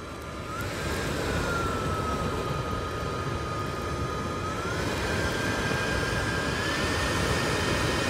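Cordless electric blower running, a steady motor whine over rushing air, blown into the glowing embers of a wood fire pit to fan the fire. Its pitch steps up about five seconds in and again near the end.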